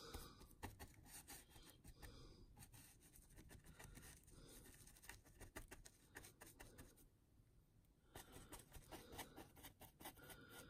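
Faint, irregular scratching and dabbing of a small paintbrush working thick mud texture paste onto a model's base, with a brief lull about seven seconds in.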